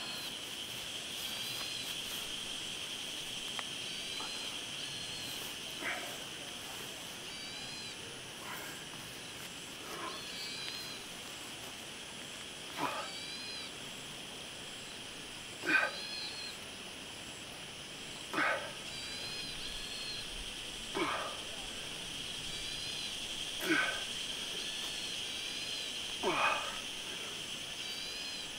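A man breathing out hard, about once every two and a half seconds, with each squat while carrying a person on his back. The breaths start a few seconds in and grow louder. Behind them runs a steady high insect drone, and a bird gives a short repeated chirp.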